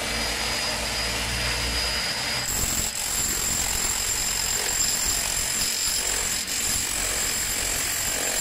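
Handheld electric demolition hammer with a chisel bit chipping a concrete wall, hammering steadily with a high whine and two momentary dips.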